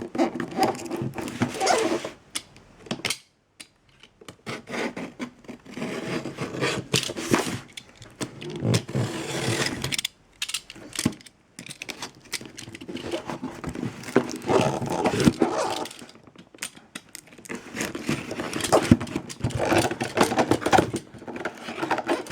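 Parcel packaging being handled and opened by hand: irregular bouts of rustling and scraping with sharp clicks, broken by short pauses.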